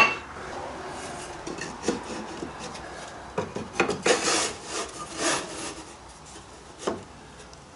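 Hand work on wood: a sharp click at the start, then a small mahogany strip handled, rubbed and scraped against a plywood box while being pencil-marked for a cut, with a few light knocks.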